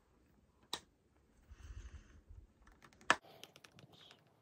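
Small clicks and taps of makeup being handled while powder foundation is applied: a sharp click under a second in, a soft brushing sound in the middle, then a louder click about three seconds in followed by a run of light ticks.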